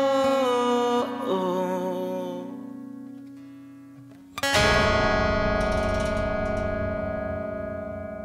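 Soundtrack music: a sung line over guitar fades out, then a full chord is struck about four and a half seconds in and rings on, slowly dying away.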